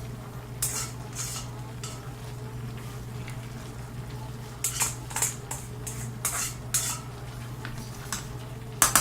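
A utensil clinking and scraping against a cooking pot in irregular knocks as pasta is moved around in it, the sharpest knock near the end, over a steady low hum.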